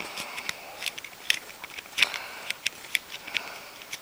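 Small sharp metal clicks and taps at irregular intervals from a Zippo lighter insert being handled while it is put back together after a flint change.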